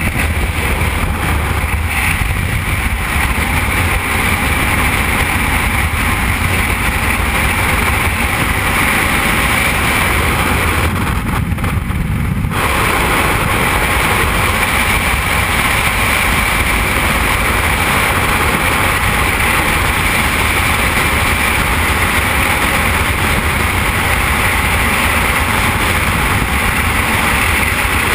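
Freefall wind rushing over a skydiving camera's microphone: a loud, steady roar of air, briefly duller about eleven seconds in.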